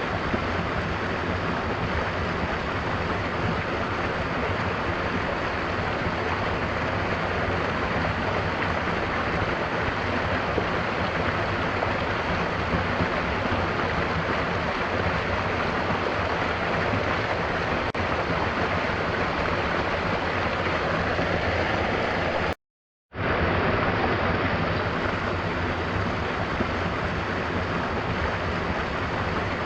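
Steady rushing water of a waterfall with rain. About 23 seconds in, it cuts out to silence for about half a second, then comes back unchanged.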